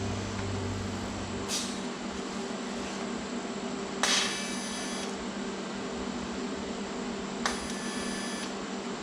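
Steady shop hum with metal clinks: a light one about a second and a half in, then two sharper strikes about four and seven and a half seconds in, each ringing on for about a second.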